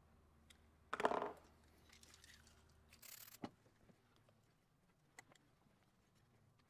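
Quiet handling of tools and a fork steerer on a workbench: a short scraping noise about a second in, then a cloth rag rustling with a sharp click just after three seconds, and a few faint clicks later.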